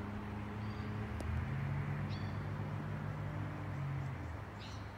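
Low, steady engine hum whose pitch shifts slightly, with a few short high bird chirps and a single click about a second in.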